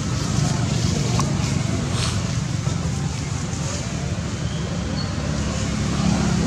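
A steady low rumble with a hiss above it, as of wind on the microphone or a motor running, and a few faint ticks.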